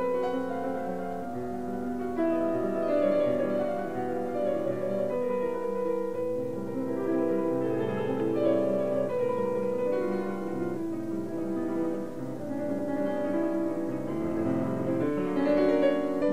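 Background piano music, its notes held and overlapping.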